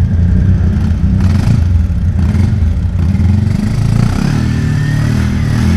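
ATV engine running close by, its note shifting as the throttle is worked about four seconds in, when a thin high whine comes in.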